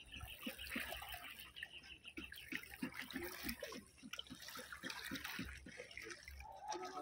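Faint water trickling and lapping, with many small irregular drips and splashes.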